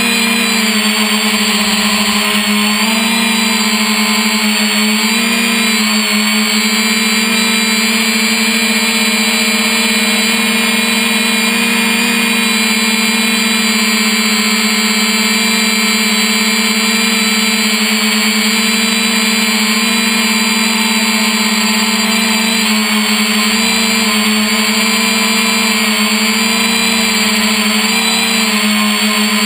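3DR Iris+ quadcopter's four electric motors and propellers buzzing steadily in flight, heard up close from the camera on the drone, the pitch wavering slightly now and then as the motors speed up and slow down.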